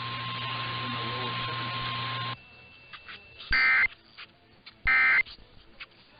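Steady broadcast hiss with a faint high tone cuts off, then the Emergency Alert System end-of-message (EOM) data bursts sound: short, shrill digital squawks repeated about every second and a third, marking the end of the alert.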